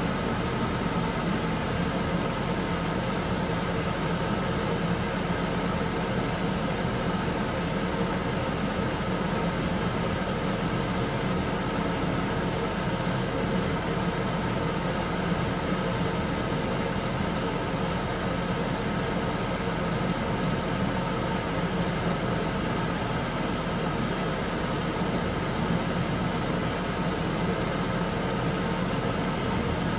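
Beef fat pieces simmering and bubbling in a wok of cloudy liquid as the tallow renders: a steady, even sound over a faint constant hum.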